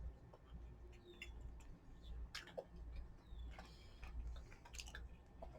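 Faint, scattered small clicks and mouth sounds of someone chewing a soft, doughy mochi, over a low steady hum.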